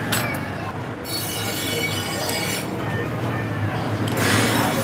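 A steady low hum and noise, with light clinks and handling sounds as a black sewing machine head is moved and worked on by hand.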